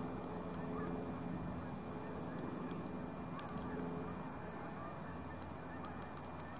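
A steady low hum, a few faint even tones like a distant motor, over quiet outdoor background noise. The hum fades out about two-thirds of the way through.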